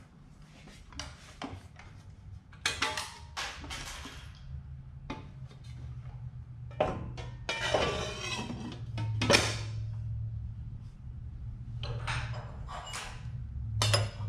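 Irregular metal clinks, knocks and scrapes of a steel saw blade being handled and fitted onto the arbor of a chop saw, tapping against the saw's guard and housing.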